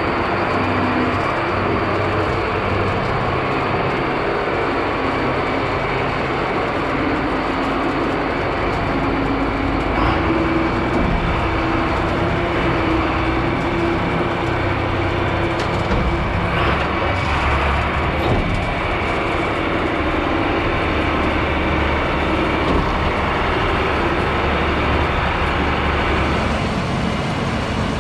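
Heavy farm machinery running steadily under load during corn harvest, with a continuous low engine rumble that shifts a little in pitch partway through.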